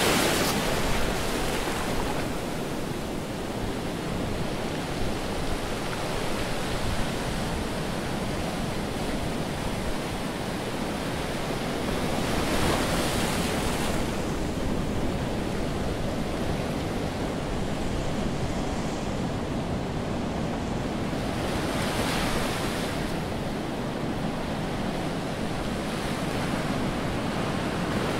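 Ocean surf breaking on rocks, a steady wash that swells louder as waves come in: about a second in, near the middle, and again later on.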